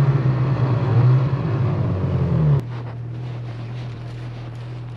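Snowmobile engine running on the trail, a loud steady drone that drops off sharply about two and a half seconds in. A quieter, steady engine hum with faint crunches follows.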